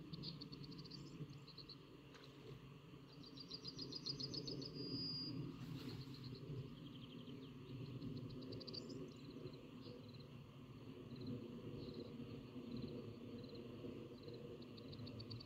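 Birds singing outdoors: high, fast trills repeated every few seconds, over a continuous low din.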